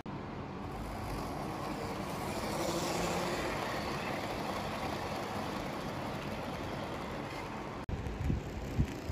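HO scale model train of blue ICF coaches running past close by: the wheels rolling on the track and the running gear make a steady rushing noise that grows louder about three seconds in and then eases off. After a break near the end come a few short low thumps.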